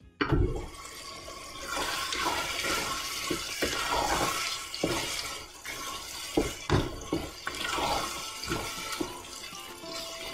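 Tomato-and-vegetable mixture sizzling and bubbling in a pot as it is stirred with a wooden spoon, with several sharp knocks of the spoon against the pot.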